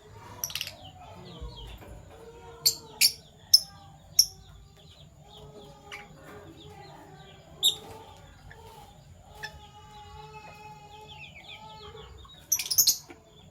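Fischer's lovebirds chirping: sharp, loud, high chirps come singly every second or so, then in a quick cluster near the end, over softer, lower chattering and a brief fast twitter.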